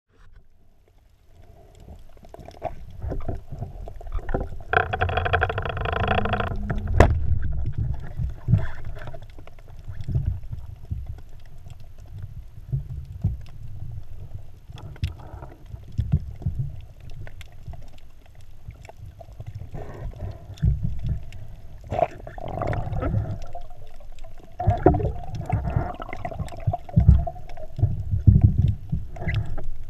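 Underwater sound picked up through an action camera's housing: an uneven low rumble of moving water, with scattered knocks and clicks and a faint steady hum. About five seconds in, a brief pitched tone sounds for a second or two.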